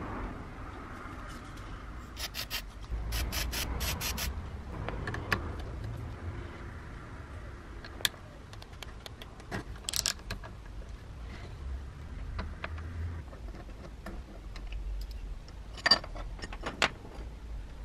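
Hand work on a Makita 1901 electric planer's cutter drum: a few short sprays of aerosol penetrating oil about two to four seconds in, then scattered metal clicks, rattles and scrapes as a socket wrench and fingers work loose the blade clamp bolts.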